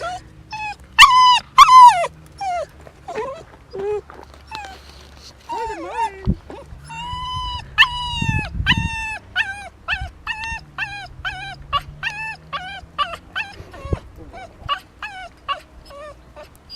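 Dachshund whining and squeaking in short, high, rising-and-falling whines. A few louder ones come about a second in, then a long run at about two a second through the second half. The whining of a dog missing a person it is attached to.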